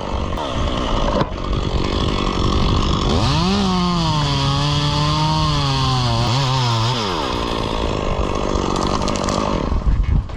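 Chainsaw cutting wood: steady saw noise throughout, with the engine's pitch jumping up about three seconds in, then dropping and holding unsteadily under load for about four seconds before falling away.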